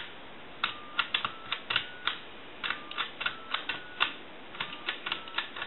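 Touch-tone keypad buttons of a Western Electric Princess telephone pressed one after another, each press clicking and giving a short touch-tone beep. The keys go in three groups of three, the tone stepping up in pitch across each group as the rows of numbers are keyed in order. This is a check that the keypad, fitted with a bridge rectifier to correct its polarity, now dials.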